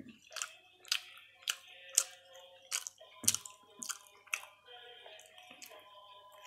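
A person chewing food close to the microphone with wet smacking sounds about twice a second, which die down after about four and a half seconds.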